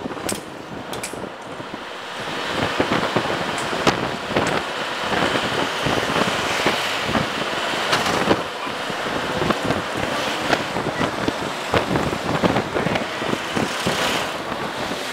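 Road noise from a moving vehicle with wind buffeting the microphone. Frequent short knocks and rattles run through it.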